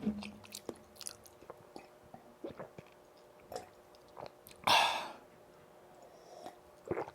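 Close-miked chewing of boneless fried chicken in a soy-vinegar chili sauce (yuringi): scattered wet smacks and small crunches, with one louder, longer noisy bite or rustle about two-thirds of the way in.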